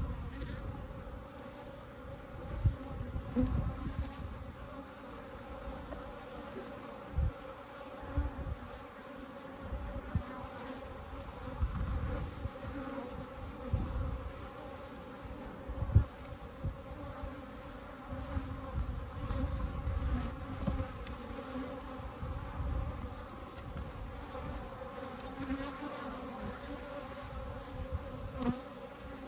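Africanized honey bees buzzing steadily as a mass around an opened hive. Short low thumps come now and then, the loudest about halfway through.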